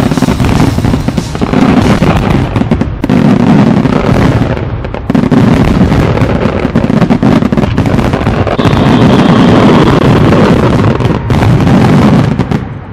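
Fireworks display in a dense, continuous barrage: rapid booms and crackling bursts one on top of another, with the show's music under it. The barrage falls away suddenly near the end.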